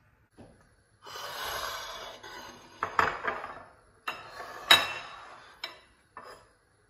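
Ceramic bowls and a plate being moved about and set down on a table: scraping and rustling, then a few sharp clinks, the loudest about three seconds in and near five seconds.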